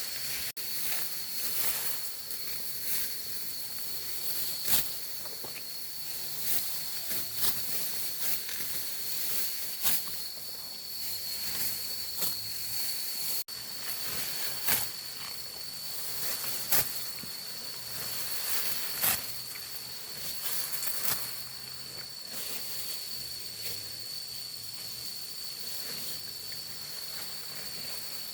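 Insects, crickets or similar, giving one steady high-pitched trill throughout, with frequent irregular sharp clicks and rustles over it.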